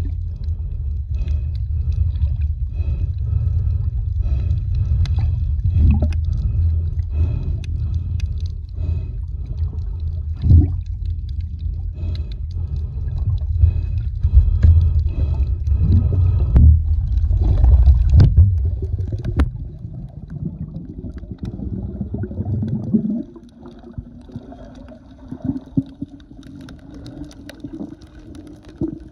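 Underwater sound taken through an action camera's waterproof housing: a muffled low rumble of moving water with scattered clicks and knocks, which fades about two-thirds of the way in. A steady droning hum then rises in pitch and holds.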